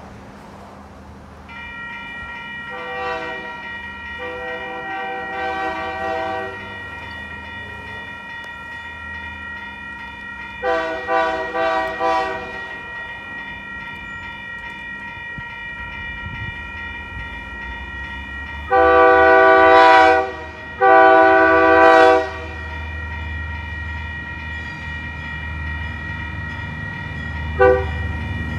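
Electronic railroad crossing bells start ringing about a second and a half in and keep ringing steadily. Meanwhile the Napa Valley Wine Train's diesel locomotive sounds its horn: fainter blasts at first, then two long, loud blasts past the halfway mark and a short toot near the end. A low engine rumble grows as the train nears.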